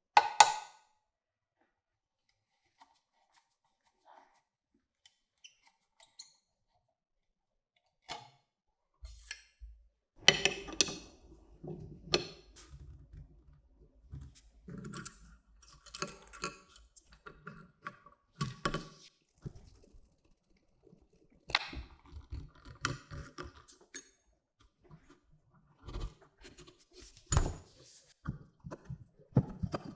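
Scattered clicks, knocks and light clinks of small hard parts and tools being handled, with a sharp knock at the start and busier handling from about ten seconds in.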